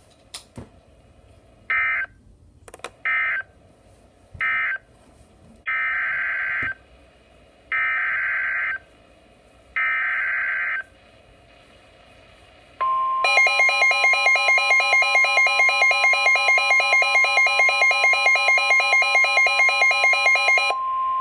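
NOAA Weather Radio SAME data bursts: three short end-of-message bursts, then three longer header bursts announcing a new alert, each a harsh warbling digital screech. About thirteen seconds in, the steady 1050 Hz warning alarm tone starts, marking a warning-level alert. Almost at once a loud rapid beeping of about four or five beeps a second joins it, the weather radio receiver's own alarm.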